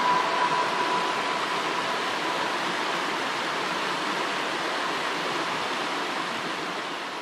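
Shallow rocky mountain stream running over stones: a steady, even rush of water, slowly fading toward the end.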